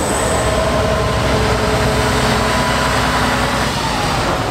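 Heavy trial truck's engine running steadily with a deep rumble and a high whine on top. The whine drops slightly in pitch near the end.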